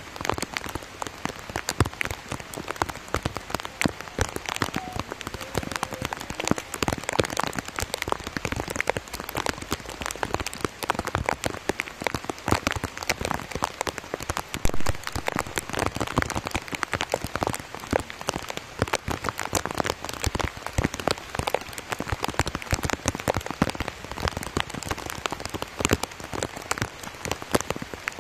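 Heavy rain falling, a dense, steady patter of drops hitting close by.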